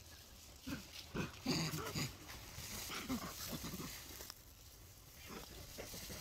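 Macaques calling in a series of short calls, most of them packed between about one and two seconds in, a second group around three seconds in, and a few more near the end.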